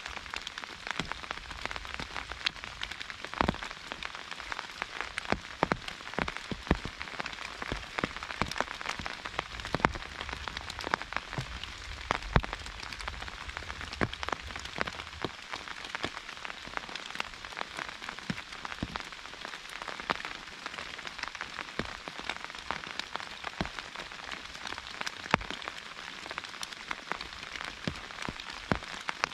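Rain falling on an umbrella: a steady patter with many individual drops striking sharply and irregularly.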